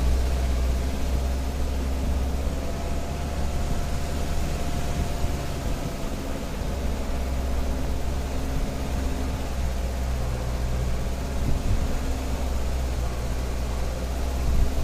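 Jeep Cherokee XJ's engine running steadily under load as the vehicle climbs a dirt track, heard from a hood-mounted camera, with a strong low rumble.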